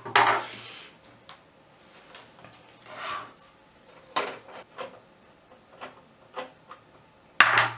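Hard plastic computer case parts being handled: a string of short knocks, clicks and scrapes as the case shell is lifted and set against the bench, with a louder sharp knock near the end.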